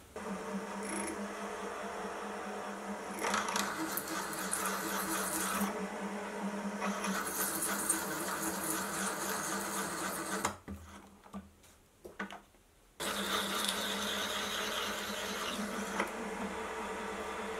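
Milling machine spindle running with a steady motor hum while a long fluted cutter is fed into a drilled hole in a steel block, with a rougher metal-cutting noise rising and falling over the hum. The sound drops away for about two seconds a little past halfway, then comes back abruptly.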